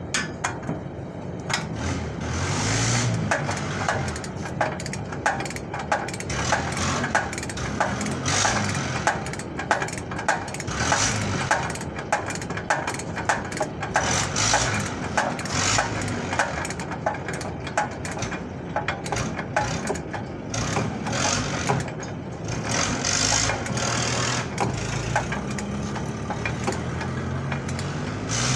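A socket ratchet clicks in repeated strokes, about two to three clicks a second, as a nut on the tie rod end at the steering knuckle is turned.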